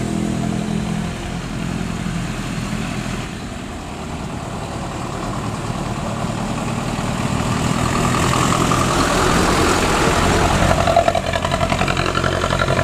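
Bus diesel engine with a modified 'snoring' (ngorok) exhaust, running with a deep rumble that grows louder through the second half as the bus draws near. The exhaust note is called fierce.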